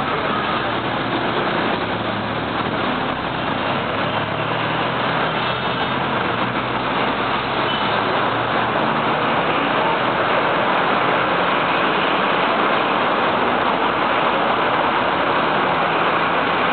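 Heavy city road traffic: city buses, minibuses and cars passing in a steady wash of engine and tyre noise, a little louder in the second half.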